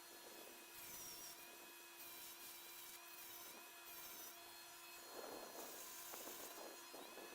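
Small handheld rotary tool whirring faintly in about five short bursts, its high whine dipping in pitch now and then as it cuts.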